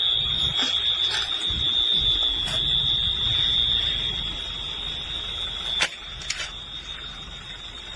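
A steady high-pitched alarm tone sounding without break, over low rumbling background noise that dies down partway through, with a sharp click about six seconds in.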